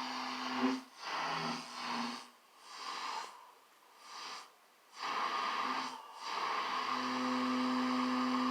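AM radio receiver giving off hissing static and a steady buzzing tone, the RF interference picked up from a tiny solid-state Tesla coil. The noise cuts out and returns several times, then holds steady over the last couple of seconds.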